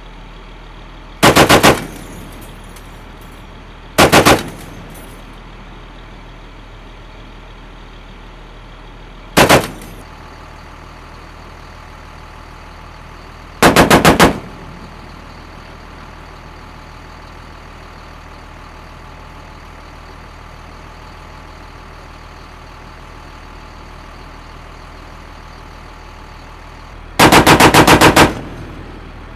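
M2 .50-caliber heavy machine gun on a vehicle mount firing five short bursts of rapid shots, the longest near the end. Between bursts, the vehicle's engine idles steadily.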